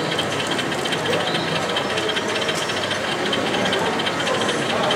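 Model train running: a fast, steady mechanical rattle, with a crowd chattering behind it.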